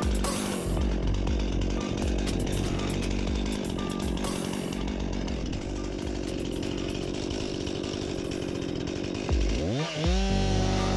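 Chainsaw running under background music with a pulsing bass beat. About nine seconds in, the saw's engine note dips, then climbs and holds high at full revs.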